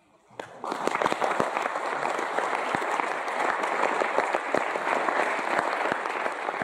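Audience applauding. Dense clapping breaks out about half a second in and carries on steadily.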